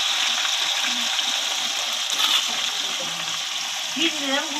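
Hot oil sizzling and bubbling hard in a steel wok during deep-frying of soybeans, a steady hiss that thins slightly toward the end.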